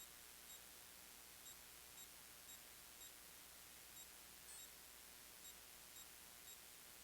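Near silence with faint, short, high-pitched electronic beeps repeating about twice a second.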